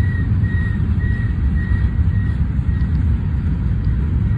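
BNSF mixed freight train's cars rolling past on the rails: a loud, steady, heavy rumble. A faint high squeal comes and goes during the first three seconds.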